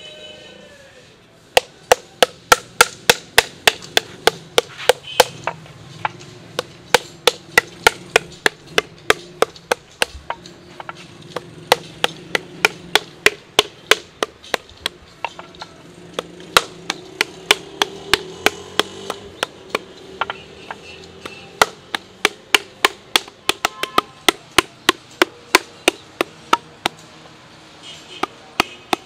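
Flat paddle beating the side of an unfired clay pot to shape it: sharp slaps at about three to four a second, in runs broken by short pauses as the pot is turned.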